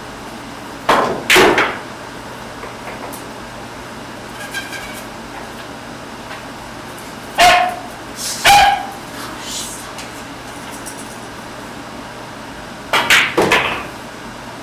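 Pool shots: a cue tip strikes the cue ball about a second in and the cue ball clacks into an object ball, with further sharp ball clacks near the middle and again near the end.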